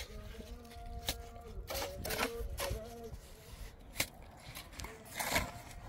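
Irregular sharp taps and knocks of hand tools, about seven in all, typical of a mason's trowel working cement.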